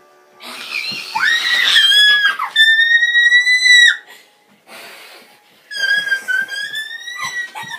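Shrill, very high-pitched horror sound-effect screams. A screech rises and drops, then a long held scream cuts off about four seconds in. After a short breathy pause, another long scream starts, its pitch wavering.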